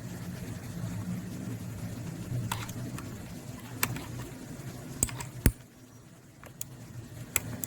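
Scattered sharp plastic clicks and taps from handling the HP GK400F mechanical keyboard and its keycap-puller tool, about seven in all with the loudest about five and a half seconds in, over a low steady hum.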